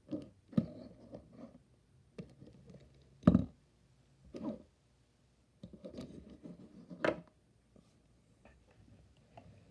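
Handling noise from small diecast toy cars being picked up, moved and set down: scraping and rustling broken by several light knocks, the loudest about three seconds in.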